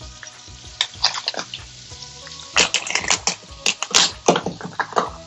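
Lobster shell being cut and split: a run of sharp cracks and crunches, sparse at first and coming thick and fast in the middle.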